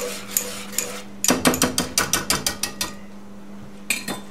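A metal spoon clinking against a stainless steel pan while stirring a thick sauce: a few light knocks, then a quick run of about a dozen clinks over a second and a half, and one more clink near the end.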